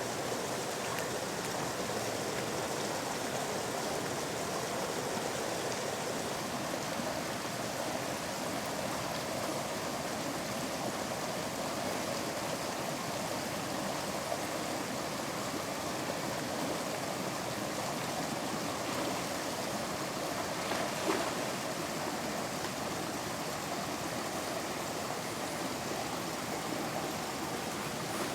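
Steady wash of running water and rain in woods by a flooded creek, even throughout, with one small knock about three quarters of the way through.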